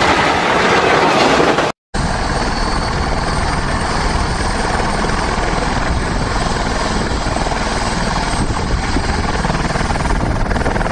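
A light helicopter running on the ground with its rotor turning, giving a steady loud rotor and turbine noise with a faint high whine. About two seconds in there is a sudden cut from a rushing downwash noise to this sound.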